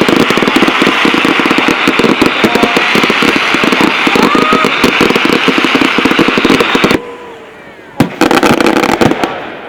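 Fireworks going off in a dense, rapid crackling barrage of small bangs that stops abruptly about seven seconds in, followed by a second, shorter burst of crackling near the end.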